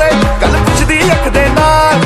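Punjabi bhangra-pop song playing loudly, with a male vocal line over a driving beat.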